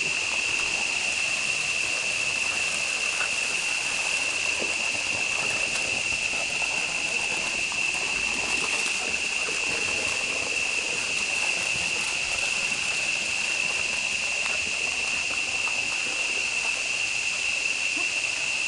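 Steady, high-pitched chorus of insects: one unbroken tone with a fainter hiss above it.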